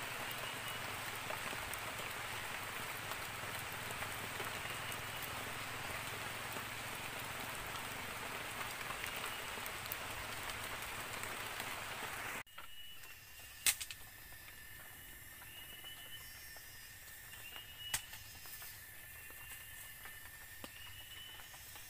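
Steady rain hiss for the first twelve seconds or so, then it cuts off suddenly to a quieter forest background with a short rising call repeated about every second and a half and a steady high tone. Two sharp knocks stand out, about a second after the cut and again some four seconds later.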